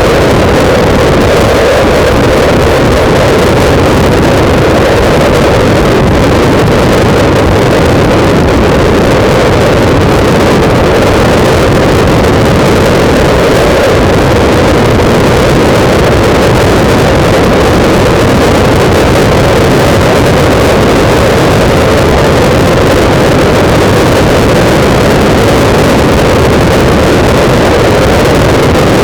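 Loud, steady wind buffeting on the microphone of a camera mounted on a moving bike, a constant rushing roar that masks the bike and road beneath it.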